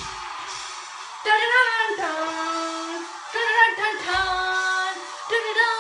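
A high voice singing in three short phrases, each sliding into a long held note, starting about a second in; faint music plays before it.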